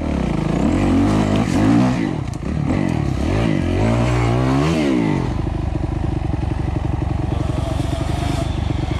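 2008 Kawasaki KX250F four-stroke single-cylinder motocross engine heard on board, revving up and down several times over the first five seconds, then holding a steady note.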